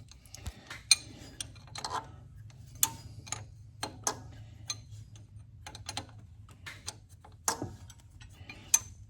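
Hand tools and metal engine parts clicking and clinking at irregular intervals, about a dozen light strikes, during wrench work on a Case 770 diesel tractor engine, over a steady low hum.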